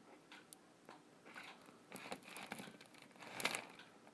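Faint clicks and light rattles of beaded purse dangles being handled, small beads and metal charms tapping against each other, with a louder rattle about three and a half seconds in.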